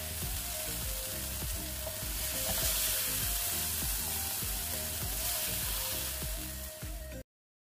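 Food sizzling as it fries in hot oil, with background music underneath; both cut off abruptly near the end.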